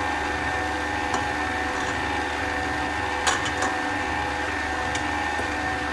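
Stand mixer motor running steadily, its flat beater turning flour into a dough in a stainless steel bowl, with a few light clicks about a second in and again about three seconds in.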